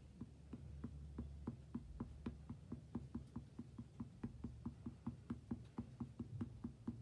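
Foam makeup sponge loaded with Distress Ink, dabbed rapidly and evenly onto a paper planner page. Soft, steady taps at about four a second.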